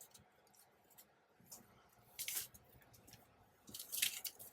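Paper strips being handled and pressed into place while gluing a journal: short papery rustles and scrapes, one cluster about two seconds in and a longer one near the end.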